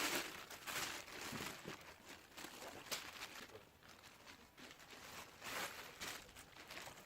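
Irregular crinkling and rustling, coming and going in short uneven spells, loudest in the first second.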